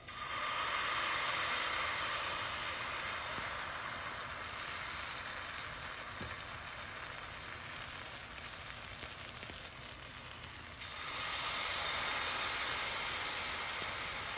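Buckwheat pancake batter sizzling as spoonfuls go into a hot, unoiled ceramic frying pan. The hiss starts suddenly, eases off slowly, and swells again about eleven seconds in as another spoonful goes in.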